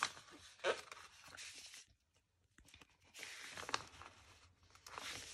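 Faint rustling and crinkling of a glossy paper sticker sheet being handled, with stickers peeled off their backing, in three bursts.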